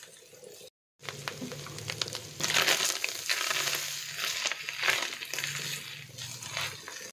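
Silicone spatula stirring and scraping minced mutton mixed with chopped onion, green chillies, butter and coriander around a pan, a rough, uneven scraping in repeated strokes.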